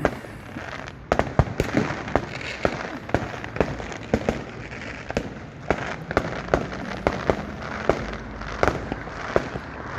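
Fireworks going off in quick, irregular succession: many sharp bangs and pops, several a second from about a second in, with a continuous hiss between them.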